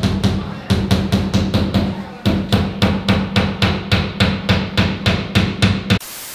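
Background music with a fast, steady drum beat over a held bass line.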